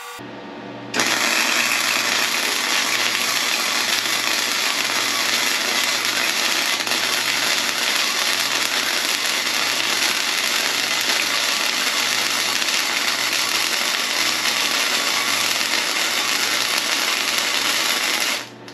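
Self-shielded flux-core arc welding with .030 Matheson wire: the arc strikes about a second in and burns with a steady, even crackle for about seventeen seconds, then cuts off just before the end. The wire feeds smoothly at this setting, with no stubbing.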